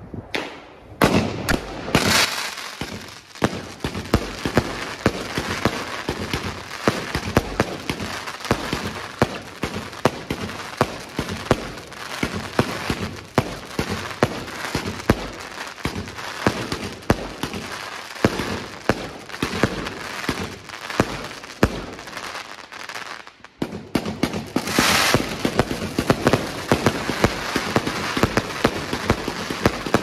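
Wolff Jackhammer 105-shot compound fireworks cake firing: a rapid, dense string of shots and bursts that starts about a second in. There is a brief break about three-quarters of the way through, then the firing resumes.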